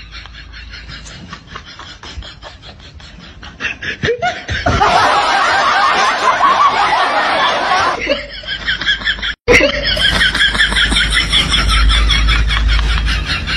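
Laughter, quieter at first and loud from about four seconds in, with a brief break a little after nine seconds before it starts again.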